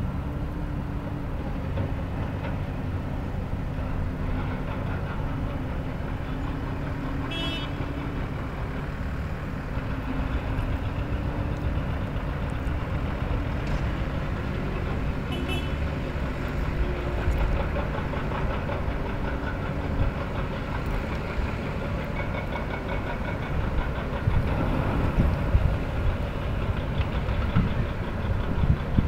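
Heavy diesel machinery at an earthworks site, a dump truck and excavators, running with a steady low engine drone. It grows louder and rougher from a little past the middle to the end, with a couple of brief faint clinks earlier on.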